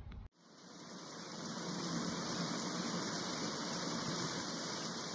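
A steady rushing noise like static or surf, with no voice or tune, starting abruptly at a cut and swelling in over the first second or two.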